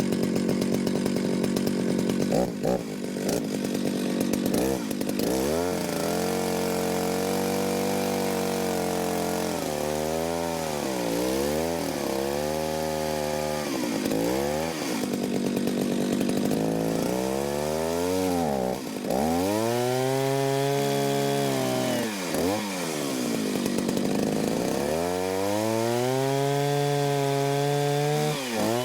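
Jonsered 801 two-stroke chainsaw running with a 32-inch bar, its engine pitch sagging and climbing back again and again as the throttle and the cut load it.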